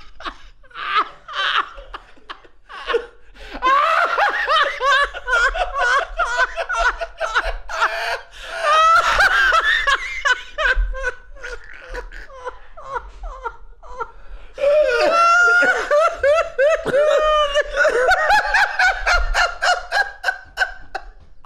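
Two men laughing hard and uncontrollably, in long fits of laughter that ease off briefly about two seconds in and again about two-thirds of the way through, then build up again.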